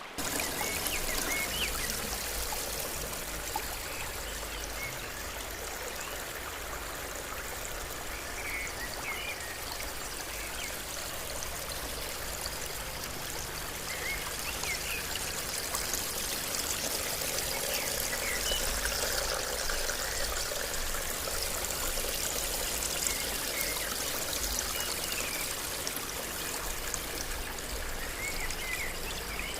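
Water trickling and splashing down the tiers of a three-layer indoor tabletop waterfall, a steady gentle flow.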